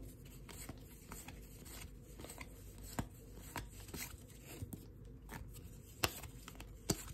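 Stack of Topps baseball cards being thumbed through one card at a time: cards sliding and flicking against each other with soft, irregular clicks and rustles, and a few sharper snaps about three seconds in, about six seconds in and near the end.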